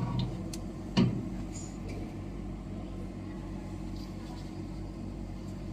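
Steady low electrical hum of running equipment, with a single knock about a second in as the wax 3D printer's build platform is loosened for removal.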